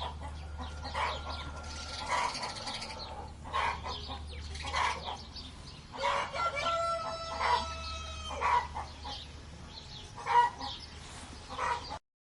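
Chickens clucking in short repeated calls, with a rooster crowing once in the middle, one long call of about two seconds. The sound cuts off suddenly near the end.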